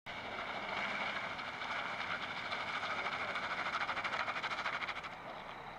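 Vehicles straining under load on a snowy road while an SUV tows a truck out of a ditch: a steady high whine with hiss, easing off about five seconds in.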